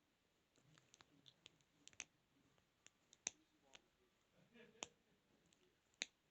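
Lock pick and tension wrench working in the keyway of a 32mm padlock: faint, irregular metal clicks and ticks as the pick rakes and sets pins, with a few sharper clicks in the second half.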